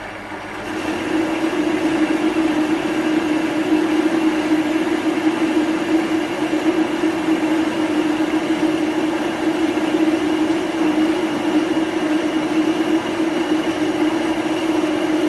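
Well-used Chinese metal lathe running, taking a turning cut on a cast aluminium workpiece. It grows louder about a second in, then holds a steady hum with a noisy edge.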